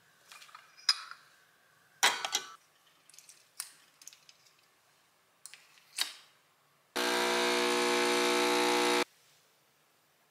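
Small clicks and a clatter as a coffee capsule is taken from a drawer, then a sharp click as the capsule machine's top lever is pressed shut. A second later the capsule espresso machine's pump buzzes steadily for about two seconds while brewing espresso, then cuts off suddenly.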